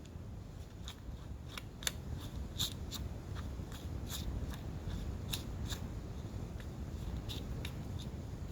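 Scattered light clicks and taps, a dozen or so at uneven intervals, as a hex driver bit is handled and fitted into a drill.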